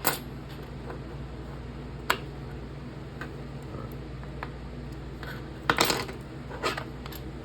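Small metal knife parts and screws clicking and clinking as they are handled and set down on a workbench. The taps are scattered, with a louder cluster of clinks about two-thirds of the way in, over a steady low hum.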